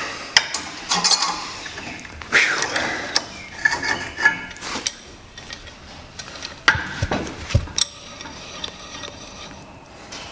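Wilton forged C-clamp's screw being backed off by hand with its long sliding T-handle: irregular metal clicks, clinks and knocks as the handle turns and slides against the screw end, and the steel clamp shifts on the fixture.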